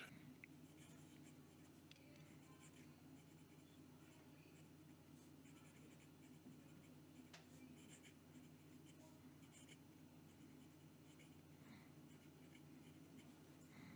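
Medium steel nib of a Fuliwen 2055 fountain pen writing cursive on lined notebook paper: faint, soft nib-on-paper scratching with a little feedback, from a nib that writes really smooth.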